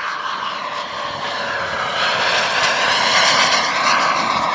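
Large RC F-86 Sabre jet's KingTech 260 model turbine running at high power: a rushing whine that grows louder, then cuts off abruptly near the end.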